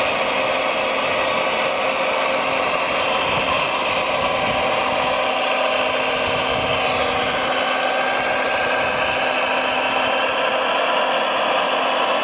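Small electric motors and gearboxes of radio-controlled model construction machines whining steadily, with a slight shift in pitch about halfway through.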